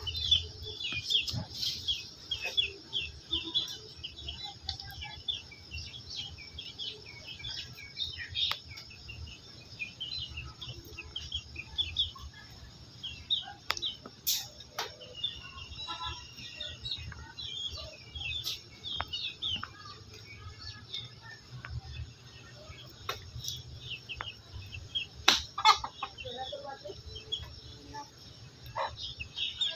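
Birds chirping busily throughout, many short high calls, with a few sharp clicks or knocks, the loudest about 14 and 25 seconds in.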